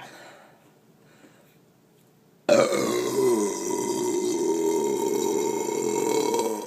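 A long, loud burp brought up from drinking carbonated Diet Coke. It starts suddenly about two and a half seconds in and lasts about four seconds, its pitch falling at first and then holding steady.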